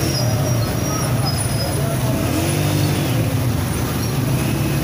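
Samosas sizzling as they deep-fry in a large wok of hot oil, under a steady low rumble of street traffic and faint voices.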